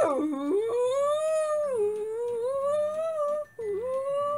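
Clarinet played badly: one wobbly, sliding note that swoops low just after the start, wavers up and down, and breaks off briefly near the end. A horrible noise that sounds really bad.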